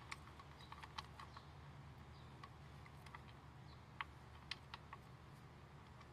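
Near silence: a low steady hum with a dozen or so faint, sharp clicks and ticks at irregular intervals.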